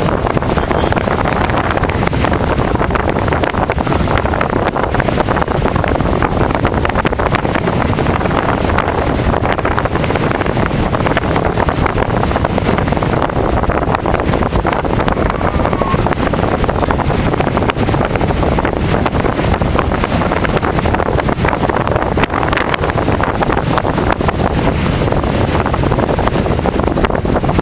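Strong storm wind buffeting the microphone: a loud, unbroken rush and rumble with no letup.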